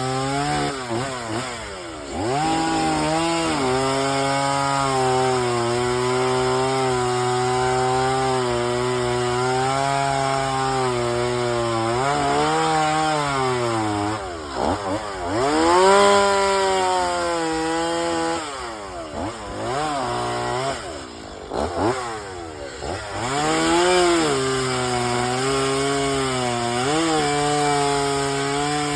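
Chainsaw running and cutting into wood, its engine speed rising and falling with the throttle and the load of the cut. The engine eases off briefly about two seconds in and again about twenty seconds in.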